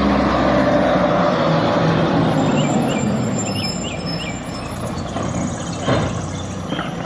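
Mack rear-loader garbage truck's diesel engine running with a steady low hum that slowly gets quieter. There are a few short chirps in the middle and a knock or two near the end.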